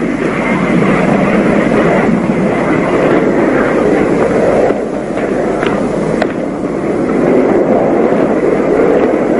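Steady din of a busy airport terminal: crowd noise with a few faint clicks.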